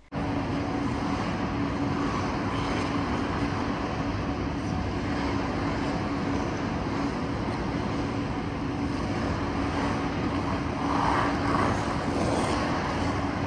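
Steady machine hum: a constant low tone over an even wash of noise, unchanging apart from a slight swell about eleven seconds in.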